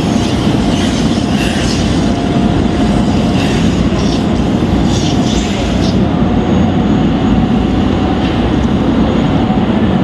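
Steady, loud rumbling background noise of a large hall, with a faint steady hum running through it.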